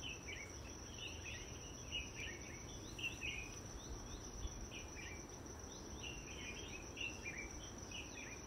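A steady high insect trill under many short, falling bird chirps that come every fraction of a second to a second.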